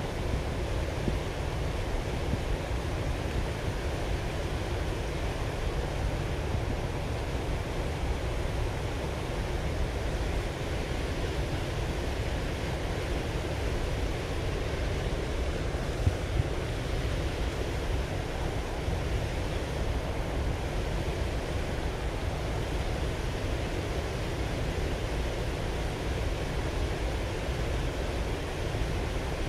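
Steady rush of river water pouring over a low weir and churning in the rapids below.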